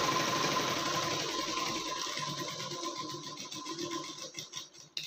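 A domestic straight-stitch sewing machine running, stitching a blouse seam, then slowing and dying away over the last couple of seconds. A sharp click comes right at the end.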